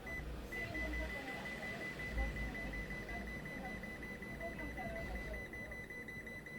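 Kemin refrigerator's display panel giving a steady high-pitched beep that starts with a short break and then holds without stopping, the alarm of a faulty display.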